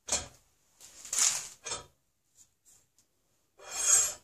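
Steel rod with a cleaning rag being pushed and pulled through a reamed rifle barrel's bore, a scraping swish with each stroke, heard as three separate strokes: a short one at the start, a longer one about a second in, and another near the end.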